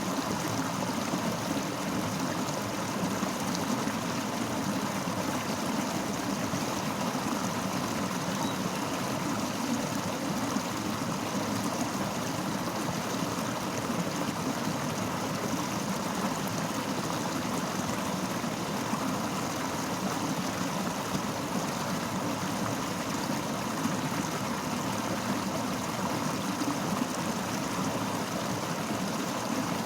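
Fast-flowing river rushing steadily over rocks, an even, unbroken wash of water sound.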